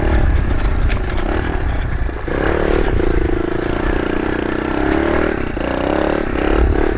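Kawasaki KLX110 pit bike's small four-stroke single-cylinder engine running hard under throttle as it climbs a rough grassy hill. The engine note comes up strong and wavers about two seconds in. Scattered knocks and rattles come from the bike bouncing over the bumpy ground.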